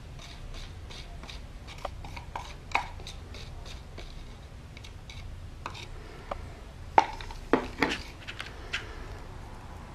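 A small stick tapping and scraping inside a plastic cup in quick light ticks, working the last of a thin patching-compound slurry out into a clay mold. About seven seconds in come a few sharper knocks as the cup and the glass plate are set down on the board.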